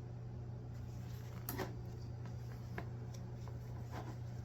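Faint clicks and light rustling of plastic figure parts and accessories being handled and fitted, a few separate clicks over a steady low hum.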